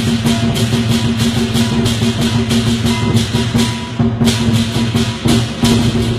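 Southern lion dance percussion ensemble playing live: the big lion drum driving the rhythm with cymbals crashing several times a second over a steady ringing gong.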